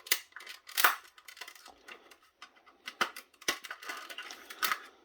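Snap-together plastic housing of a cordless headset base station being forced apart by hand, giving a series of sharp plastic cracks and clicks, with about five loud ones among lighter rattles.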